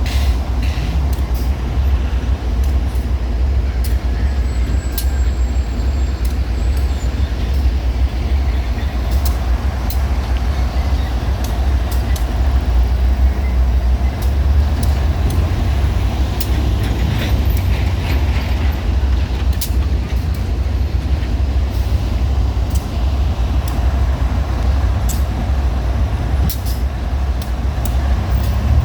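GE diesel-electric locomotives (ES44AC and AC4400CW) running with a steady, deep engine rumble, with scattered short clicks over it.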